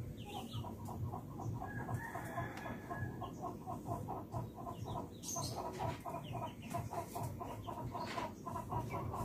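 A chicken clucking in a steady, even run of about four short clucks a second.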